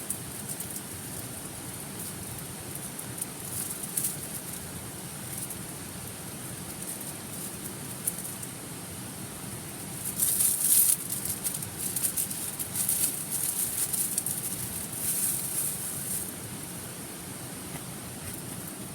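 Wood campfire crackling and snapping in fine sharp pops, with a busier, louder spell of crackles midway, over the steady rush of a stream.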